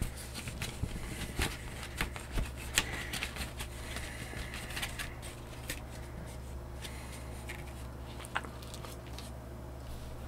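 Plastic Blu-ray cases and their paper cover inserts being handled: a run of clicks, taps and rustling. It is busiest in the first half and thins out after about six seconds, over a steady low hum.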